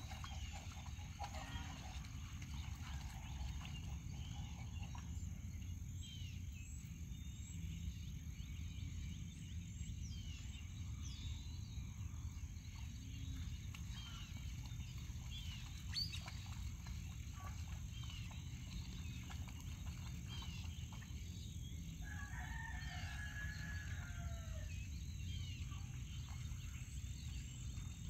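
Chickens: a rooster crows once for about two and a half seconds, trailing down at the end, near the end, over many small high chirps and a steady low rumble.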